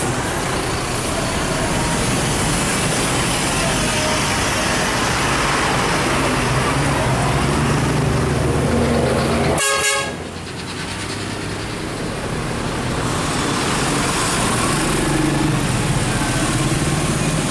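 Tour coaches running and passing in a convoy: steady engine rumble and road noise, with brief horn notes sounding now and then. The sound breaks off abruptly about ten seconds in and resumes a little quieter.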